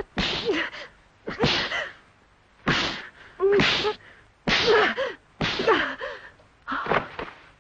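A woman's short cries and gasps in a physical struggle, about seven in a row, each sharp and breathy with a bending pitch.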